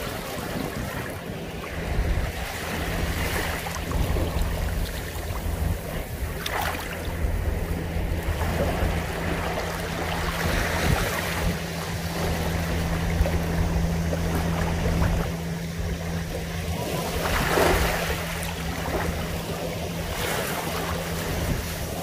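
Small waves lapping onto a sandy shore, each wash swelling and fading every few seconds, over a steady low rumble.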